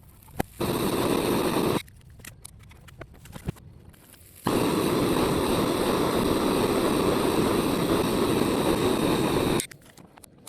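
Gas burner flame hissing steadily, turned on briefly, then again about four seconds in for about five seconds, with each burst cutting off suddenly.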